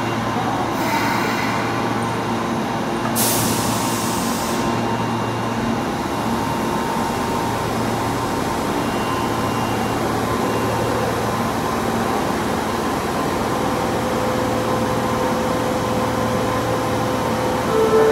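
Osaka Metro 22 series subway train with a steady mechanical hum, and a short hiss of compressed air about three seconds in.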